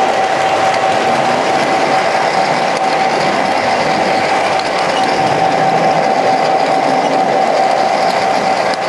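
Lionel O-gauge model train running along its track, heard from a camera car riding on the train: a steady mechanical rattle of wheels and gearing with a constant hum running through it.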